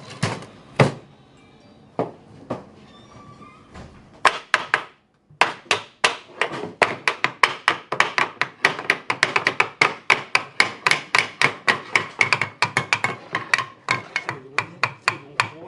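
A hammer striking wood: a few separate knocks, then from about four seconds in a fast, even run of blows, about four to five a second.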